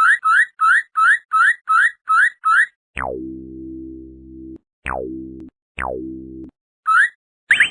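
Synthesized cartoon sound effects: a run of short rising chirps, about three a second. About three seconds in comes a falling swoop into a low buzzing tone held for about a second and a half, then two shorter swoops of the same kind, and the chirps start again near the end.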